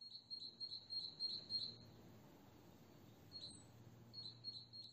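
Insect chirping faintly in a rapid series of high chirps, about three to four a second, with a pause of about a second and a half in the middle.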